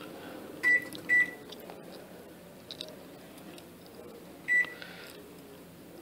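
LG convection microwave's control panel beeping as its keys and dial are worked: two short beeps close together about a second in, then a third about four and a half seconds in.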